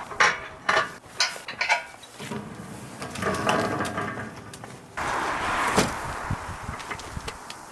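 Clicks, knocks and rattles of tools and metal parts being handled, with a longer scraping, rattling stretch in the second half.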